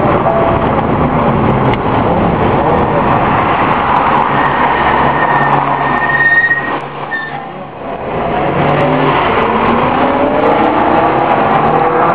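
Ferrari 360 Modena's V8 engine running and revving, heard from inside the cabin, with rising revs. The engine sound drops away sharply about seven seconds in, then climbs again.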